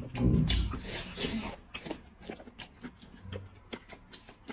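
Close-up eating sounds: a man chewing and slurping food from a bowl, loudest in the first second and a half, then quieter wet clicks of chewing.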